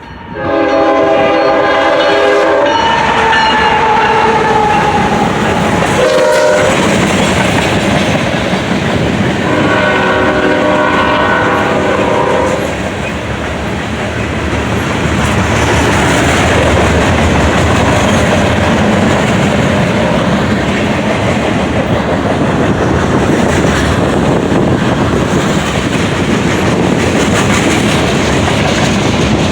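Nathan K5HL five-chime air horn on a Union Pacific ES44AC locomotive sounding a horn show: a long blast at the start, a short one, then another long blast about ten seconds in. After that the manifest freight train passes, with its diesel locomotives running and the cars' wheels clattering over the rail joints.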